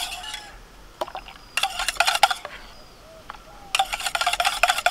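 Wire whisk rattling quickly against a stainless steel bowl while whisking caramelised milk into milk. It comes in two spells of rapid clinking, about a second and a half in and again from near four seconds on.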